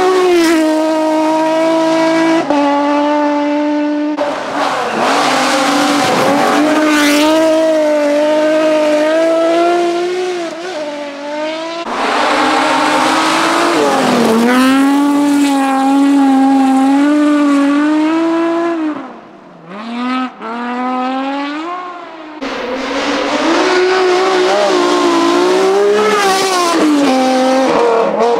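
BMW rally cars at full throttle on a stage, engines revving hard and changing gear, the pitch climbing and dropping with each shift, in several short clips cut one after another. The engine noise briefly dips about two-thirds of the way through.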